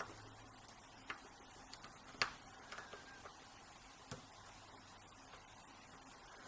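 Faint, scattered metallic clicks of a tubular lock pick working the pin stacks of a tubular cam lock, four or five in all, the loudest a little over two seconds in.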